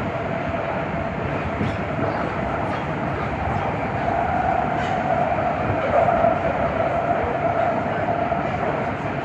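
Nagoya Municipal Subway Higashiyama Line 5050-series train running through the tunnel, heard from inside the car: steady rolling and running noise with a tone that grows stronger over the middle seconds, and faint clicks from the rails.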